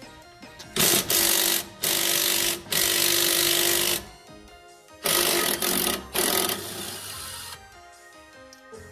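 Cordless impact wrench hammering in five short bursts, spinning the 14 mm nut off the rear stabilizer link; background music plays under it.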